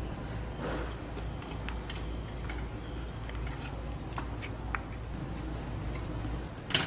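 Scattered light clicks and taps over a steady low hum, with one sharper, louder click near the end.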